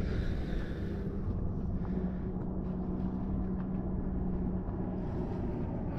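A steady low motor hum under wind rumble on the microphone, the hum fading out about five seconds in, with a few faint ticks.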